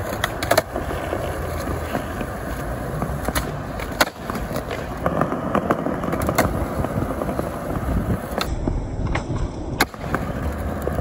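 Skateboard wheels rolling over stone tile paving, with several sharp clacks as the board pops and lands on tricks onto the concrete ledges.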